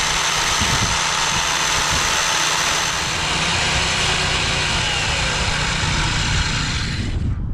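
A motor running steadily with a low rumble under a loud hiss; the hiss cuts off abruptly about seven seconds in while the rumble carries on.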